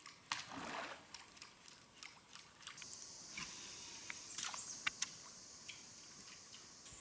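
A steady high insect drone sets in about three seconds in, over scattered small clicks and knocks from the canoe and fishing tackle while a hooked fish is played on the rod.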